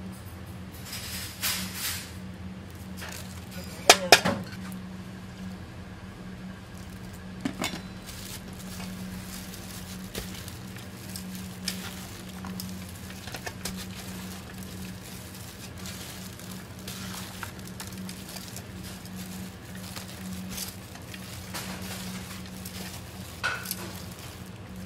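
Julienned radish being hand-tossed with red pepper powder in a large metal bowl: soft rustling with scattered light clinks against the metal, and a sharp double clank about four seconds in. A steady low hum runs underneath.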